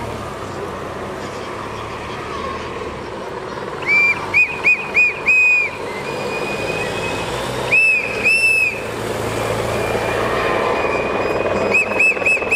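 Runs of short, sharp, high whistle blasts: five in quick succession about four seconds in, two more around eight seconds, and another quick run near the end. Underneath is the steady noise of a helicopter flying over the valley.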